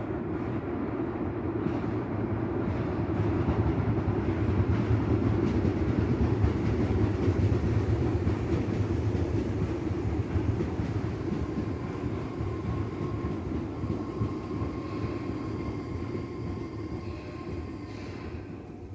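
Electric commuter train of the Tobu Tojo Line running past, a steady rumble of wheels on rail that swells to its loudest about five seconds in and then slowly fades, with a faint steady tone joining in the second half.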